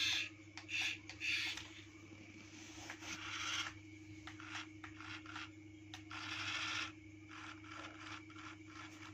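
Transforming remote-control toy car's small electric motor and plastic gears running with a steady hum, broken by repeated rasping, grinding bursts as the car unfolds into a robot.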